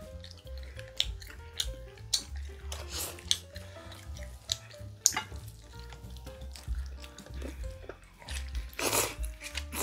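Close-up slurping of thin spicy wheat noodles, loudest near the end, over background music, with small clicks and smacks of eating with chopsticks throughout.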